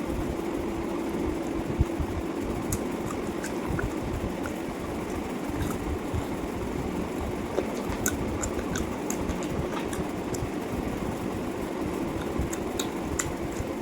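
Steady low mechanical hum and rumble, with a constant tone in it, and scattered small sharp clicks of eating and chewing over it, more frequent in the second half.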